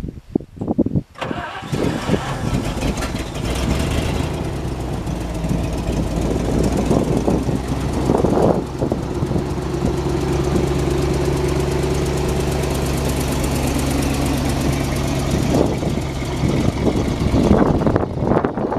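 Engine of a 1979 International S-series tandem-axle straight truck starting: a second of cranking, then it catches and runs, settling into a steady idle.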